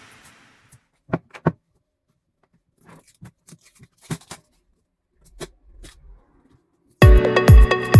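A few scattered light clicks and knocks, with silence between them; then electronic music with a steady beat starts about seven seconds in.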